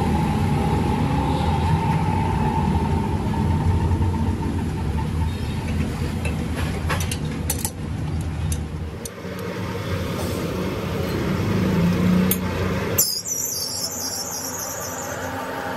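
Crankshaft grinding machine running with a steady low hum as the crankshaft turns between its chucks, with a few light metallic clicks around the middle. About 13 seconds in the sound changes suddenly to a high hiss.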